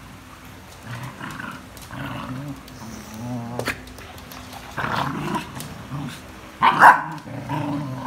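Two six-month-old puppies play-fighting: low growling throughout, broken by a few short barks, the loudest about seven seconds in.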